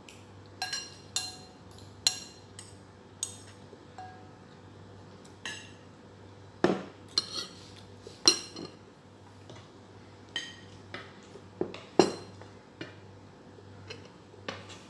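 Metal spoon clinking and scraping against a ceramic bowl while eating: irregular sharp taps, some with a short ring, the loudest a few about halfway through and again near 12 seconds in.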